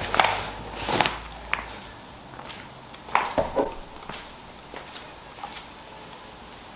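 Footsteps and the knocks and scuffs of cardboard boxes being carried and set down on a concrete floor, a few separate bumps, louder near the start, about a second in and again just after three seconds.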